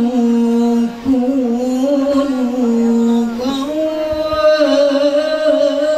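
A man reciting the Quran in the melodic tilawah style, holding long drawn-out notes with ornamented turns. There is a short break about a second in, and the pitch steps up about three and a half seconds in.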